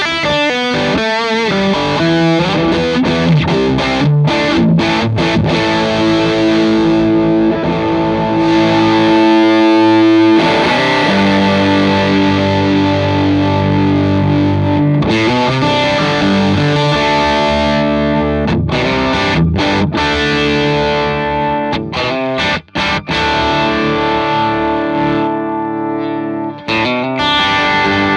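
Fender Telecaster played through a D-Sound Fisherman British-style overdrive pedal, with a touch of delay, into a Vox AC30 amp. It plays overdriven chords and riffs that ring on, with a couple of brief stops about three quarters of the way through.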